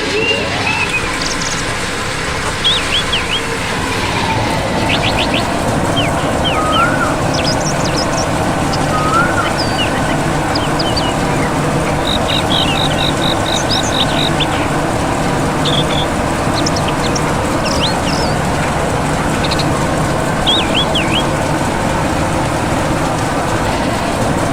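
A small motor running steadily, likely a DIY mini tractor's or excavator's, with birds chirping over it.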